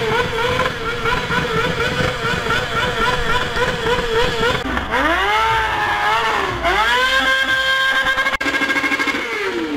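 Motorcycle engine revved hard and held at high revs with a fast, even warble. About halfway through the revs drop sharply, then climb back up and hold high again before falling away near the end.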